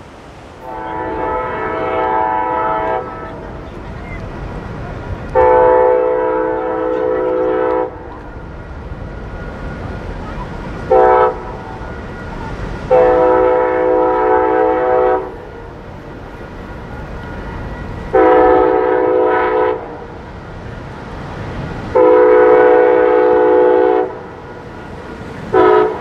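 Locomotive multi-note air horn sounding the grade-crossing signal, long, long, short, long, then starting the pattern again with two long blasts and a short one near the end. A train's low rumble runs underneath.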